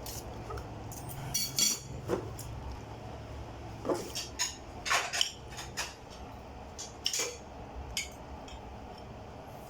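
Cutlery clinking against dishes in a series of short, sharp clinks, coming in a few clusters about a second or two apart.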